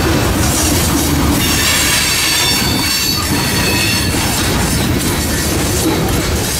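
Freight train of tank cars and covered hoppers rolling past at close range: a steady rumble and rush of steel wheels on rail. A thin, high wheel squeal rises over it for a second or two near the middle.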